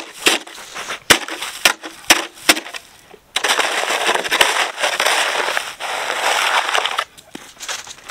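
A plastic snow shovel chopping into crusty, icy snow with several sharp separate strikes, then a long scrape as the blade is pushed through the snow for about four seconds.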